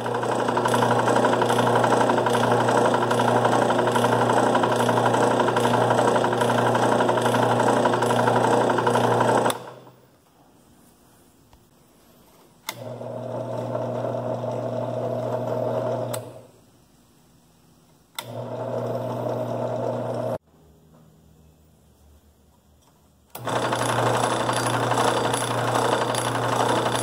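Central Machinery (Harbor Freight) 8-inch 5-speed bench drill press motor and belt drive running, very noisy, almost like a diesel engine knocking. The owner traces the noise to the top end: pulleys not tightened down on the spindle and motor shaft, and the belt rubbing on a wire clamp. It stops about ten seconds in, runs twice more, quieter and more briefly, after adjustments, then runs loud again near the end with the belt cover open.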